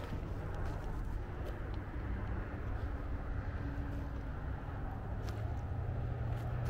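Steady low hum of a running engine, its pitch rising slightly about five seconds in, with a few faint clicks.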